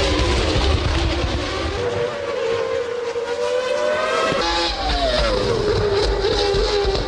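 Formula One race cars' engines running at high revs. The pitch climbs steadily, then drops sharply about four and a half seconds in and falls away as a car goes past or lifts off.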